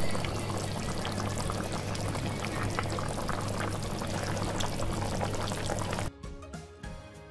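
Spiced fish-curry gravy boiling hard in a pan, a dense crackling bubbling and spitting that cuts off suddenly about six seconds in, leaving background music.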